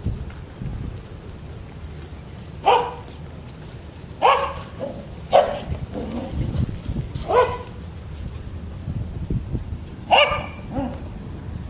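Border collie puppies, about four weeks old, giving five short, high yips spaced a second or two apart, over a low rumble.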